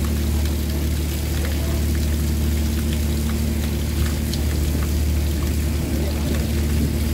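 Work boat's engine running steadily, a low even hum, with a few faint light ticks over it.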